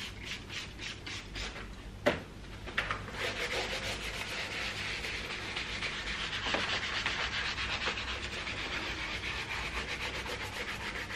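A spray bottle of fabric coating pumped in quick sprays onto a carpet car mat, about four sprays a second for the first second and a half. After a click, the coating is worked into the carpet fibres with a steady scrubbing rub.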